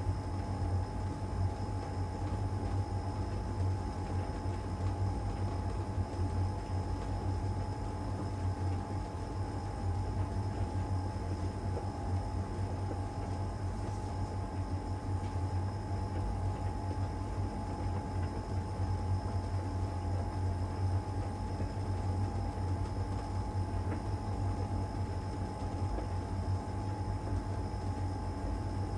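LG heat pump tumble dryer running steadily in its cupboard-dry stage: a constant low hum with a steady higher tone over it.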